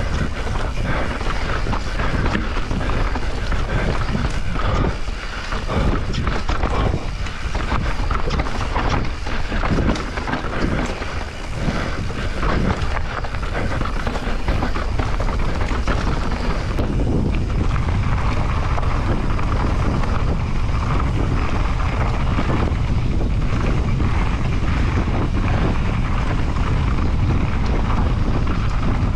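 Transition Spire 29er enduro mountain bike descending a dirt trail at speed: tyres on loose ground and the bike rattling and knocking over rough terrain, with wind buffeting the action camera's microphone. About halfway through, the knocking thins out into a steadier low wind rumble.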